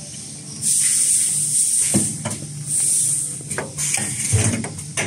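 Semi-automatic toilet-roll bagging machine working on compressed air: a loud hiss of air starting about half a second in and lasting over a second, a shorter hiss near the middle, and several sharp mechanical knocks as its pneumatic parts move.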